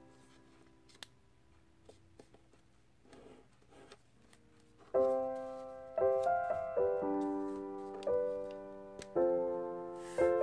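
Background piano music: soft held notes at first, then about five seconds in, chords struck roughly once a second, each dying away. A faint rustle and a few crinkles of paper being folded come under the quiet opening.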